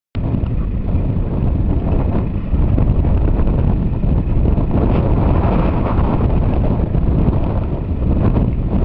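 Off-road vehicle engine running, with low wind rumble on the microphone; the sound cuts in abruptly just after the start.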